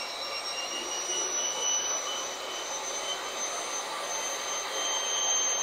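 Electric hand mixer running at a steady speed, its beaters whipping a cream cheese and powdered sugar mixture in a stainless steel bowl, with a steady high-pitched motor whine.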